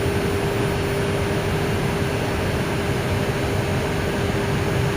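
Steady rushing noise inside an Airbus A320 cockpit while taxiing, with a constant hum running through it.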